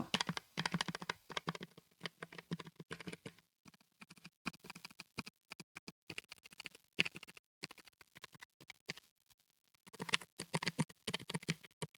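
Typing test on a Keychron K3 Pro low-profile mechanical keyboard: fast, irregular key clicks, quiet and somewhat muffled, with a short pause about eight seconds in before the typing picks up again.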